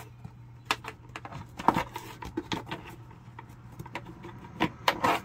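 Scattered light clicks and knocks as the rubber latch strap on an Everchill RV refrigerator door is handled and unhooked from its knob, the sharpest about a second and a half in and a cluster near the end, over a steady low hum.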